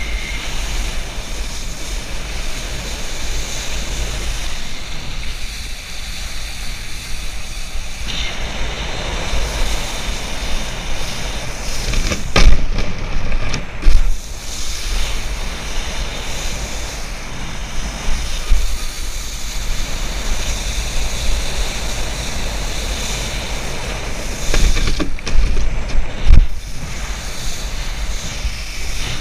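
Wind buffeting the microphone of a body-mounted action camera, with water rushing and spraying off a wakeboard being towed across a lake. A few sharp knocks come about twelve to fourteen seconds in and again near the end.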